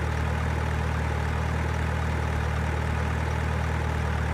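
A heavy vehicle's engine idling with a steady, even low hum.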